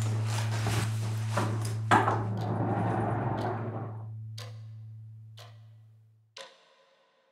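A low, steady drone with a wash of noise, both slowly fading, with a few sharp clicks scattered through. The drone stops abruptly about six and a half seconds in, leaving near silence.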